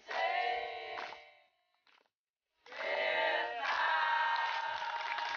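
A group of young men singing a song together, clapping their hands along. Two sung phrases with a short gap about two seconds in; the second holds a long steady note.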